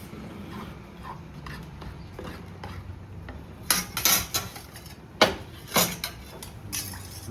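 An eating utensil clinking and scraping against a bowl of noodles. There are light taps at first, then a cluster of sharp, loud clinks in the second half.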